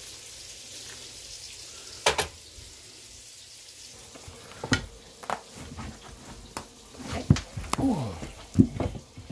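Hot water poured from a kettle into a stainless steel mug, a steady hiss that stops about two seconds in with a sharp knock. Scattered knocks and handling noises follow.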